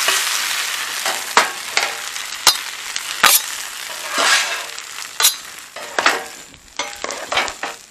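Sliced potatoes and onions sizzling in oil on a steel flat-top griddle. At the start a metal spatula scrapes against the plate, and sharp clicks come every second or so. The sizzle slowly fades.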